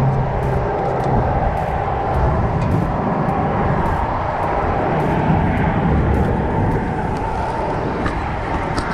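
Steady roar of wind and road traffic.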